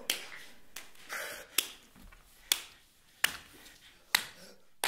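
A run of about seven sharp, short snapping clicks, spaced roughly 0.8 seconds apart, in a fairly even rhythm.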